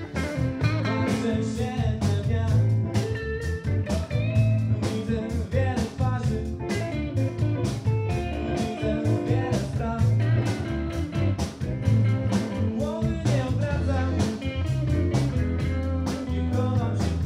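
Live band music: a man singing into a microphone over electric guitar, bass and drums with a steady beat.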